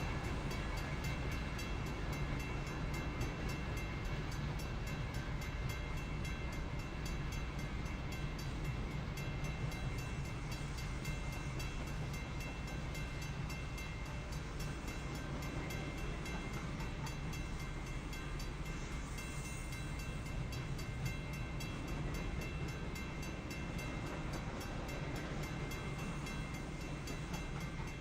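Norfolk Southern intermodal freight train rolling through a grade crossing with a steady low rumble, while the crossing bell keeps ringing in a fast, even rhythm.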